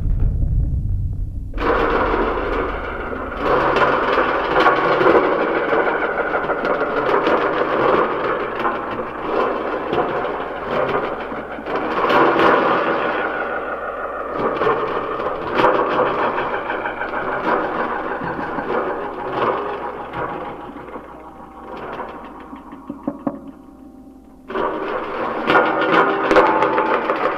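Dense, noisy, crackling texture of an experimental live sound-art score, peppered with small clicks. It thins out and sinks in level about three quarters of the way through, then cuts back in at full level near the end.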